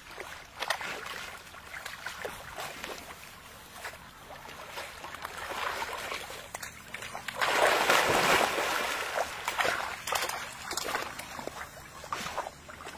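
Water splashing and sloshing as yellow Labradors wade and paddle through shallow water, with a louder burst of splashing about halfway through.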